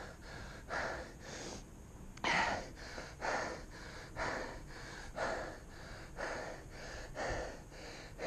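A person breathing hard, close to the microphone: short puffs of breath in and out, the strongest about once a second.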